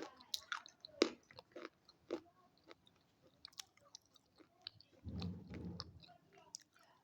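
Close-up crunching and chewing of a hard, crunchy food, with irregular sharp cracks as it is bitten and broken down in the mouth. About five seconds in, a brief low rumble sounds.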